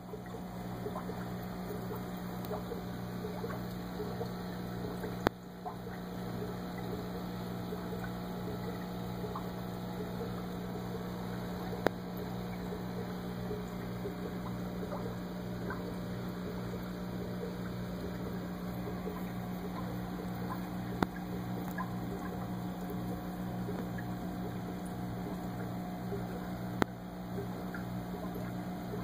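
Steady hum of an aquarium air pump with the fizzing and trickle of bubbles rising from a volcano bubbler ornament. Four sharp clicks are spaced through it.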